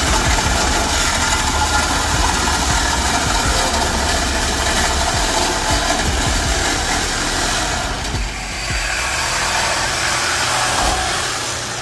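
Chevrolet 305 small-block V8 idling steadily with a low exhaust rumble, dipping briefly about eight seconds in.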